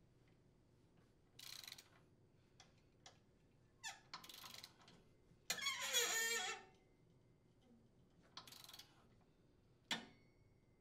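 Ratcheting torque wrench working the impeller's center bolt: several short bursts of ratchet clicking as the handle is swung, the longest about halfway through, with a few single metallic clicks between. The bolt is being torqued to 50 foot-pounds.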